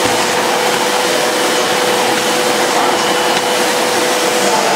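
Sebo Airbelt C3 cylinder vacuum cleaner running steadily while its floor nozzle is pushed back and forth over carpet, with a steady humming tone that stops near the end.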